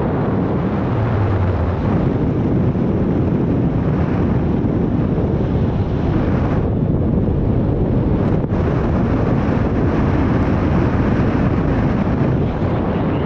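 Steady, loud wind noise from the air rushing over a paraglider pilot's action-camera microphone in flight, with no engine to be heard.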